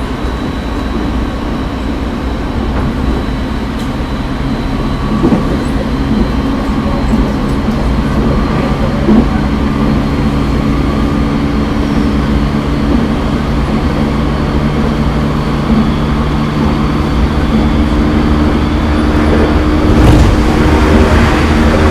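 In-car running sound of a JR East 209 series 500 subseries motor car at steady speed: steady traction motor and gear whine over wheel and track rumble, with a few clicks from the wheels over the rail and a louder thump about 20 seconds in.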